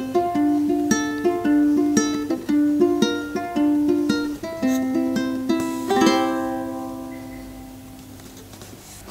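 Ukulele fingerpicked in a thumb-and-fingers pattern, a steady run of single plucked notes over F and then B-flat chords. About six seconds in a chord is struck and left to ring, fading away.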